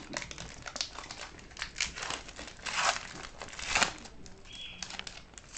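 Foil wrapper of a hockey trading-card pack crinkling and tearing as it is pulled open by hand, in a run of irregular crinkles.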